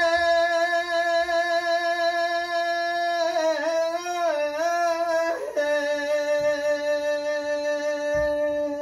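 A man singing a Bengali folk song unaccompanied, drawing out one long held note with a few quick ornamental turns in the middle. After a brief break about five and a half seconds in, he holds a second long note a little lower.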